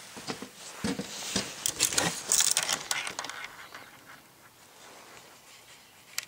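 Rustling and clicking handling noise as the camcorder is picked up and carried, with some footsteps. It is loudest and busiest in the first half and fades to a low hiss, with one more click just before the end.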